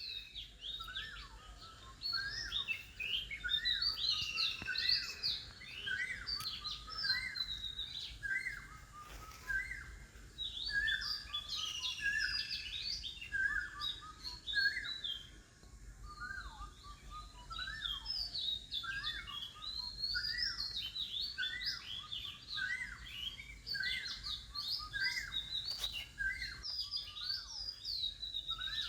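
Several birds chirping and calling without pause, a steady stream of short, quick, overlapping chirps.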